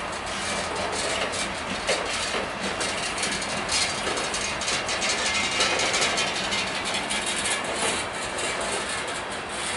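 Covered hopper cars of a freight train rolling slowly past: a steady rumble of steel wheels on rail with frequent clicks and clanks.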